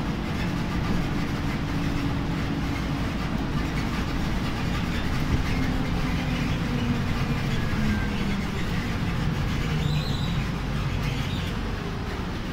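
Interior of a Solaris Urbino 18 articulated city bus under way, heard from over a wheel arch: a steady rumble of engine, drive axle and road noise while driving.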